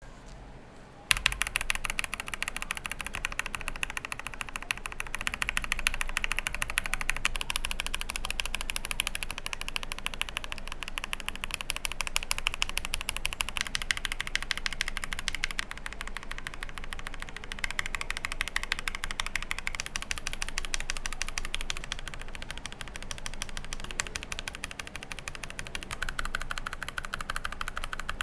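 Fast typing on a Tecware B68 mechanical keyboard fitted with lubed Gateron Yellow KS-9 linear switches: a dense, unbroken clatter of keystrokes that starts about a second in.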